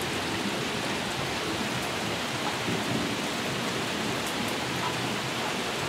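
Heavy rain pouring steadily in a thunderstorm, an even hiss of rain on the ground and surfaces.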